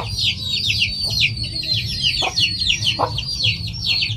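A flock of chickens at feeding time, mostly chicks peeping constantly in many quick, high, falling cheeps, with a few short lower sounds scattered through and a steady low hum underneath.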